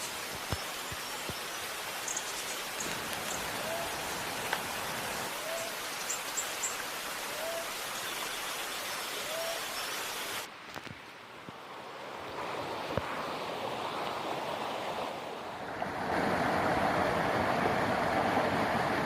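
Steady rushing of flowing water, with a short chirping call repeated every second or so. About ten seconds in it cuts abruptly to a duller rushing noise that grows louder near the end.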